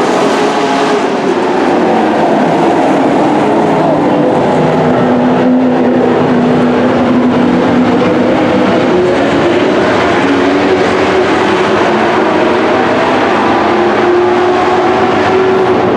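Several dirt-track race trucks' engines running hard around the oval, a loud continuous engine noise with overlapping pitches that drift up and down as the trucks circle.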